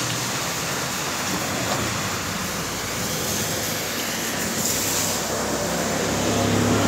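High-pressure water jet from a hose spraying against a vehicle's metal body and underside: a steady hiss of spray, with a low hum coming up near the end.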